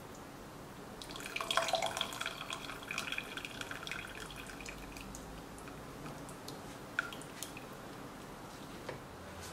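Chicken broth trickling and dripping back into a stainless stockpot from a lifted mesh strainer of boiled soup vegetables. It starts as a splashing trickle about a second in, thins out after about four seconds, and ends in scattered single drips.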